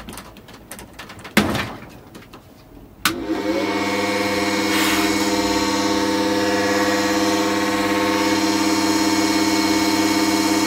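A sharp click about three seconds in, then a loud, steady electrical hum made of many steady tones: a Xpelair Taurus T10 fan motor overvolted to about 2000 V from a microwave oven transformer, running under the overload.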